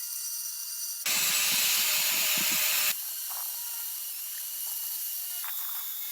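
A loud burst of hissing spray from a pressurised nozzle, lasting about two seconds, cutting in and out abruptly.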